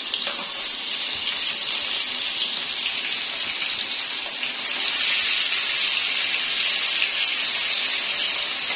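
Marinated fish pieces frying in hot oil in a pan over a high flame: a steady, dense sizzle with fine crackling that grows slightly louder about halfway through.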